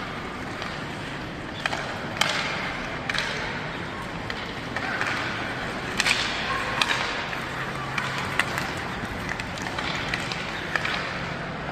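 Ice hockey play: skate blades scraping and hissing on the ice, with sharp clacks of sticks on the puck scattered through.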